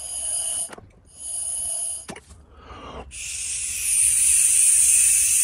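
Air blown by mouth through the EVAP purge valve of a 2017 Ford Explorer Police Interceptor Utility, hissing with a whistling tone: a short blow ending under a second in, another about a second later, then a longer, louder one from about three seconds in. Air passing through the normally closed valve means it is defective, the cause of a P0456 very small EVAP leak code.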